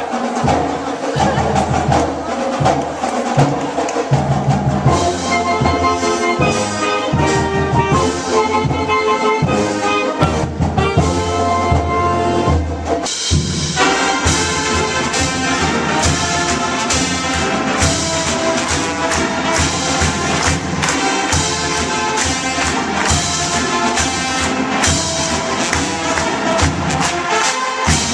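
Marching band playing: brass (trumpets and trombones) over drums and percussion, with a steady beat and a brief break about halfway through.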